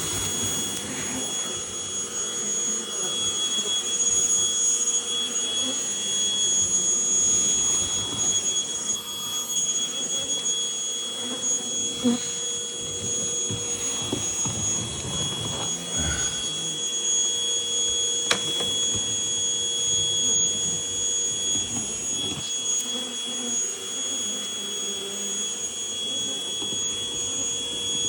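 Bee vacuum motor running steadily with a constant high whine, drawing up honeybees during a live hive removal.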